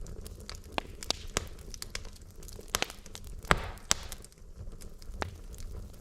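Burning logs in a fireplace crackling: irregular sharp pops and snaps over a low steady rumble. The loudest pop comes about halfway through with a brief hiss after it, and another strong snap follows close behind.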